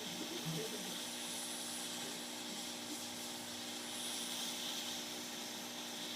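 Hot air rework gun blowing steadily, an even rush of air over a low hum, as it heats and melts the solder on a laptop DC power jack's pins to desolder it.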